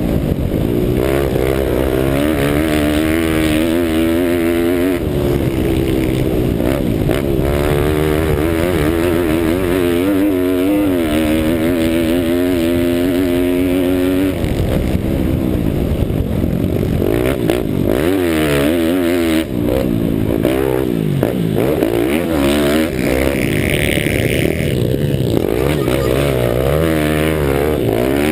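Pit bike engine being ridden hard, revs climbing and dropping again and again through gear changes and corners, heard up close from the rider's helmet.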